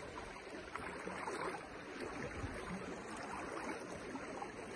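Low, steady rushing of a fast-flowing river, with a few faint ticks.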